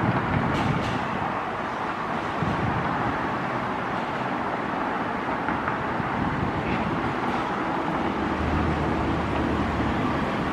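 Steady wash of distant road traffic, with a low engine drone coming in about eight seconds in.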